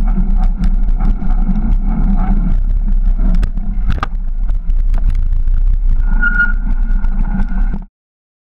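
Mountain bike riding with a close-mounted camera: steady wind and tyre rumble, a sharp knock about four seconds in as the front wheel lands the 4 ft drop, and a steady high squeal from about six seconds in. The sound cuts off suddenly just before the end.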